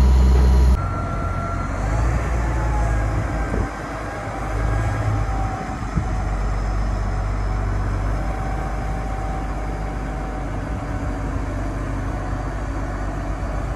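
Mobile crane's diesel engine running steadily as it hoists a boat in slings: a low rumble with a faint steady whine. A louder low rumble cuts off abruptly under a second in.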